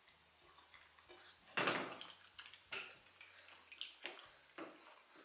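Close-up eating sounds of plantain pottage eaten by hand: wet mouth noises and chewing, with scattered soft clicks of fingers working food on a plate. About one and a half seconds in comes one louder noise.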